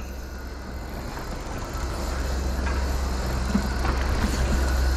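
Steady low rumble of wind and sea on the microphone, slowly growing louder, while a spinning reel is cranked against a hooked fish on an ultralight rod.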